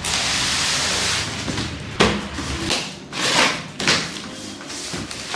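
Cardboard box being opened and its packed vacuum cleaner parts handled: a steady scraping, rustling hiss for about two seconds, then several knocks and clatters as pieces are moved.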